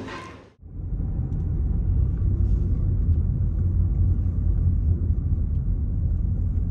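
Steady low rumble of a car driving along a road, heard from inside the cabin. It starts about half a second in, as background music cuts off.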